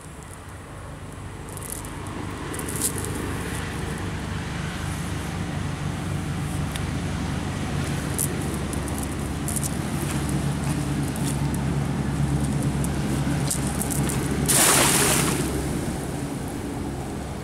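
A cast net landing on pond water with one short splash near the end. Under it runs a steady low motor hum that slowly grows louder.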